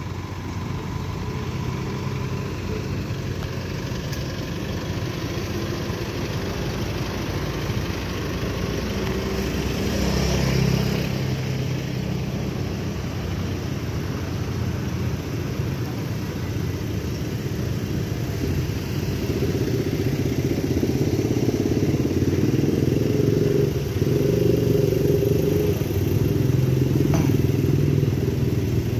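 Engines of armored police vehicles running in a convoy: a steady low rumble that swells briefly about ten seconds in and grows louder through the second half.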